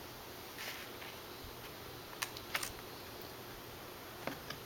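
Trading cards being handled: a brief soft rustle just under a second in, then a few small sharp clicks around two seconds in and near the end, over a faint steady hiss.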